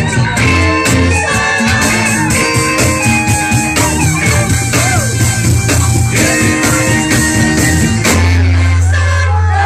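Live band playing amplified music with guitar, keyboard, saxophone and singers over a steady drum beat. About eight seconds in the beat stops and the band holds one long low chord, closing the song.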